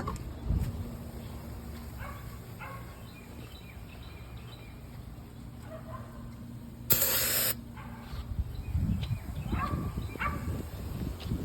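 A single short spray hiss, about half a second long, comes about seven seconds in, typical of an aerosol can of starting fluid sprayed into the engine's intake. A dog barks a few times in the background over a low steady hum.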